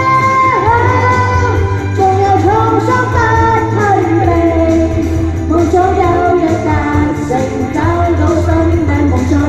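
Women singing a pop song into microphones over loud amplified backing music with a steady bass, the melody moving between long held notes and short slides.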